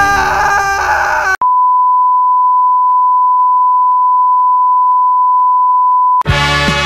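Television color-bar test tone: one steady, unwavering high beep lasting about five seconds, cutting in abruptly after a second and a half of music. Brass-led swing music cuts it off near the end.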